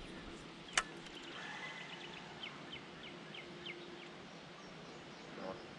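A bird calling a run of short, falling chirps, about three a second, over quiet riverside ambience, after a single sharp click about a second in.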